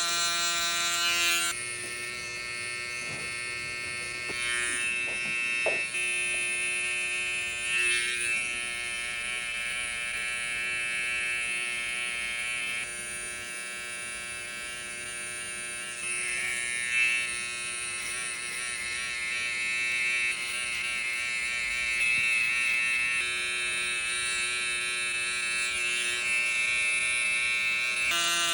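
Electric hair clippers buzzing steadily while cutting hair, their tone shifting several times as the blade works through the hair.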